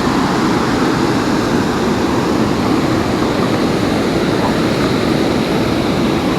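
A steady, loud rushing noise without any pitch to it, level throughout.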